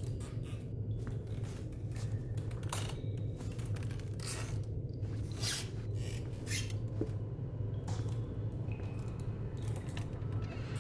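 Footsteps and scuffs of shoes climbing a stairwell at an irregular pace, over a steady low hum.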